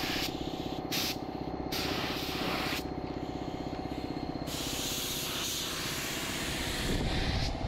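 Siphon-feed paint spray gun hissing in bursts as its trigger is pulled and released, the last burst about three seconds long. A steady motor hum runs underneath.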